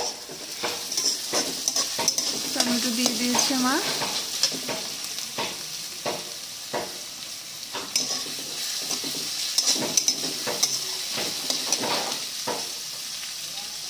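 Chopped onions and tomatoes sizzling in hot oil in a metal kadai, stirred with a metal spatula that scrapes and knocks against the pan at irregular strokes.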